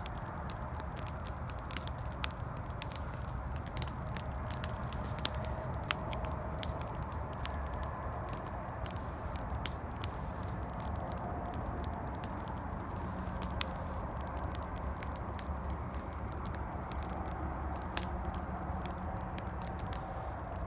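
Campfire crackling with irregular sharp pops and snaps over a steady low rumble of distant highway traffic.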